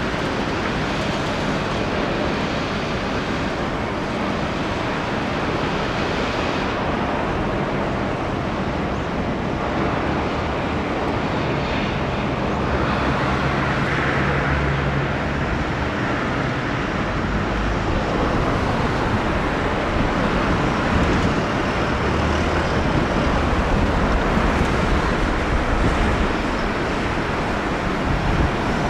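Steady outdoor rumble of passing road traffic, with a low hum that comes and goes.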